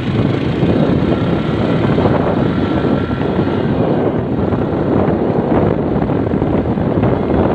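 Steady noise of a moving road vehicle, with wind buffeting the microphone.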